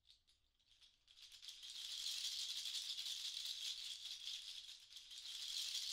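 A dense, high rattling or shaking texture that fades in over the first two seconds and then holds steady.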